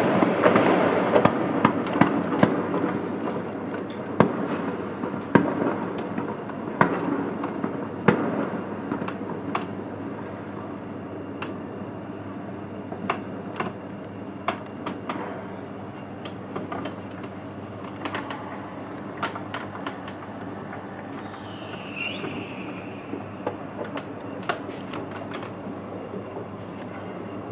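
Fireworks going off across a wide area: a continuous rumble of many overlapping bangs that thins out over the first ten seconds or so, with scattered sharp pops and cracks throughout. A short whistle swoops up and back down about twenty-two seconds in.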